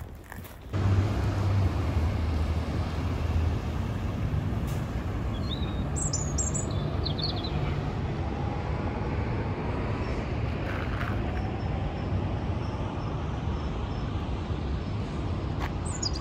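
Downtown street traffic: a steady wash of passing vehicles with a low engine rumble, starting abruptly about a second in. Small birds chirp briefly around the middle and again near the end.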